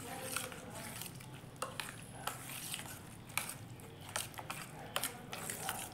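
Wet semolina, beaten rice and curd mixed by hand in a stainless steel bowl: soft squelching of the soaked mixture with irregular sharp clicks and scrapes against the steel.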